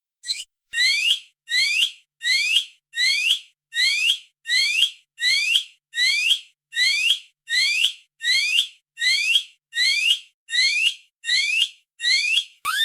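Lab freezer alarm sounding: a short, rising electronic chirp repeated steadily about every three-quarters of a second.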